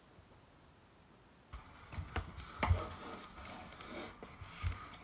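Quiet at first, then from about a second and a half in a run of soft knocks and scratchy rustling: pencil and paper being handled on a table.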